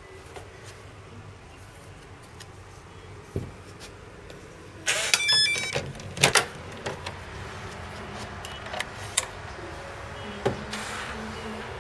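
A hotel room's electronic key-card door lock gives a short run of beeps as the card is read, then the latch and handle click as the door opens. A few more clicks follow as the key card is slotted into the wall power switch, and a low steady hum starts as the room's power comes on.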